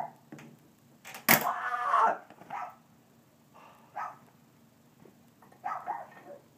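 A dog barking in short bursts, a few times. About a second in there is one louder, sudden burst with a noisy tail lasting most of a second.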